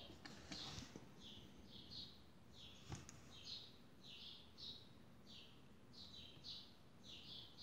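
Faint bird chirping in the background: short high chirps repeating roughly twice a second, with a single sharp click about three seconds in.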